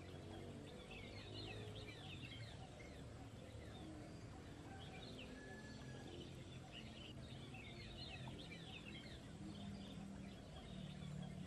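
Several small birds chirping faintly in quick, scattered twittering spells, thickest early on and again from the middle on, over a steady low background hum.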